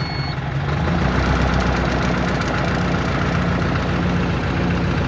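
Vehicle engine idling steadily, heard from inside the cab. A last reversing beep ends about half a second in as the automatic transmission's selector leaves reverse for neutral, and the engine note settles about a second in.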